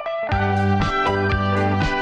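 Background music: a plucked guitar tune over a low bass line, notes falling at a steady pace of about four a second, with a brief break just at the start.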